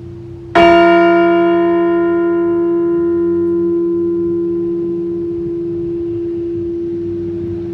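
Liberty Bell replica struck once about half a second in, a single memorial toll, then ringing with a long, slowly fading hum. The bell is already humming faintly from its previous strike before it is hit.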